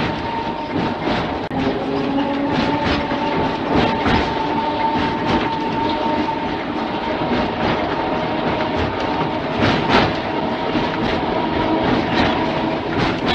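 Mumbles Railway tramcar running along the line: a steady rumble with a held whine, and a quick, uneven clatter of wheels over the rail joints.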